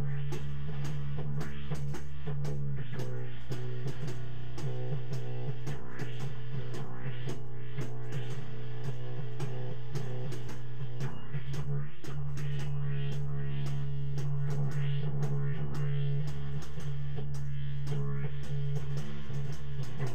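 Instrumental music: guitar notes plucked over a steady, held low bass tone.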